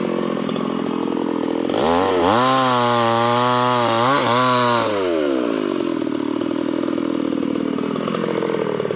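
Stihl 381 two-stroke chainsaw idling, then revved up about two seconds in and held at high speed for about three seconds with a brief dip, before its pitch falls back to a steady idle.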